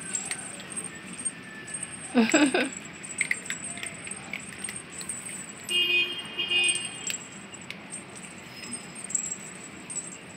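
Cats and kittens begging, with one loud meow about two seconds in and a fainter call near the middle, amid light clicking and jingling.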